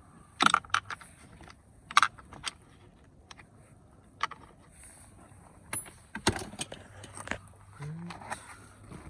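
Scattered sharp clicks and knocks of hand work on a car door: a Phillips screwdriver, screws and trim parts being handled as the door's screws are taken out.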